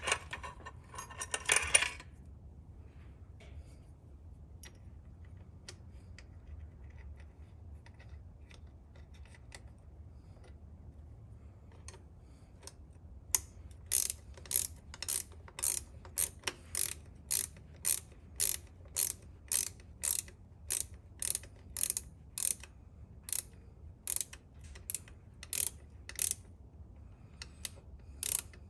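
A ratcheting wrench clicking steadily, about two clicks a second, as a bolt holding the air throttle actuator is run in. There is a short clatter of metal near the start, and a quiet stretch in between.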